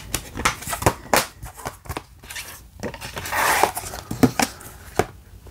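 Plastic Blu-ray case and disc being handled: a string of clicks and snaps as the disc is pressed home and the case is closed, with a longer scraping rustle a little over three seconds in.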